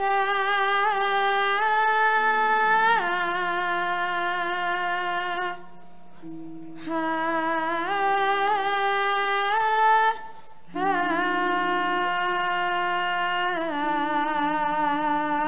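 A young woman sinden singing a Javanese tembang into a microphone, holding long notes with vibrato and stepping down in pitch at the ends of phrases. She breaks twice, about five and ten seconds in, over a steady low accompanying tone.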